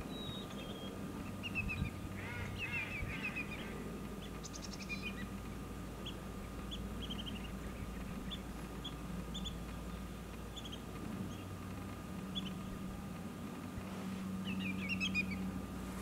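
Greater yellowlegs calling: short, clear, falling notes in quick runs of two or three, repeated again and again, with bursts of calls about two seconds in and again near the end. A steady low hum runs underneath.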